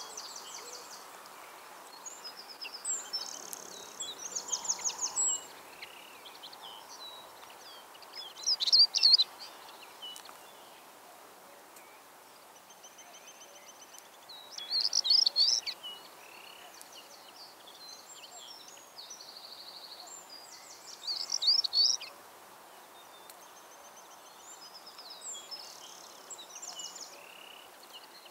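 Songbirds singing on open heath: short, bright, high-pitched phrases and rapid trills, with a louder phrase about every six seconds over a faint steady background hiss.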